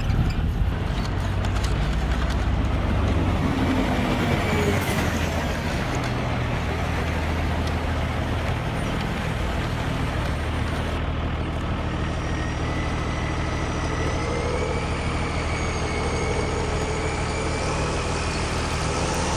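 Heavy truck engine running steadily throughout.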